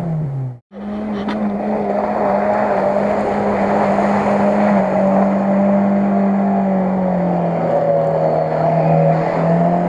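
SUV engine held at high revs while its wheels spin and slide through deep mud, a steady drone that sags slightly in pitch in the second half and comes back up near the end. The sound drops out briefly just under a second in.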